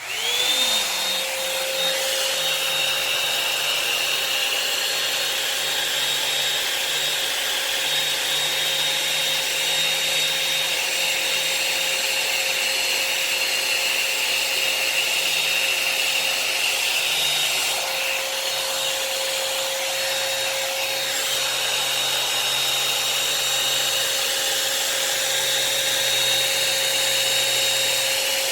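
Revlon hot-air dryer brush switched on: its motor spins up within half a second to a steady whine and runs on with a continuous rush of air, the tone shifting slightly as it is worked through wet hair.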